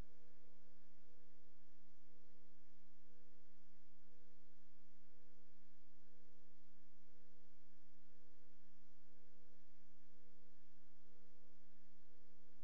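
A steady low hum made of a few fixed tones, with a fainter higher tone that comes and goes above it.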